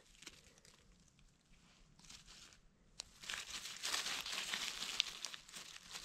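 Dry forest-floor litter rustling and crackling, starting after a sharp click about three seconds in; the first half is near silence.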